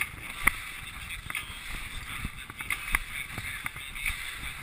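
Skis sliding and scraping over wind-packed, crusty snow, a steady hiss, with a few sharp clicks and knocks; the loudest comes about half a second in and another near three seconds.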